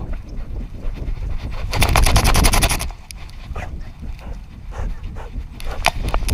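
A running dog heard through a GoPro strapped to its own harness: panting and rhythmic footfalls over a low rumble of wind and rubbing on the camera. About two seconds in there is a loud rasping burst lasting about a second.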